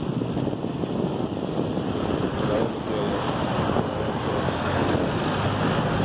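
Wind buffeting a phone microphone while riding a bicycle: a steady, dense rumble of wind noise.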